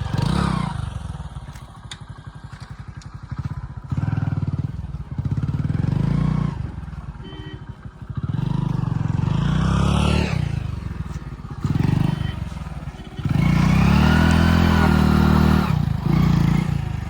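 Motorcycle engine running, revving up and down several times, with a long rise and fall in pitch near the end.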